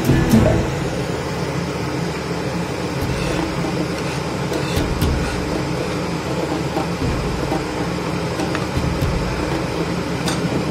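A pan of spiced gravy simmering on a gas burner makes a steady rushing noise. Near the end there are a few light clinks of a steel ladle stirring in the pan.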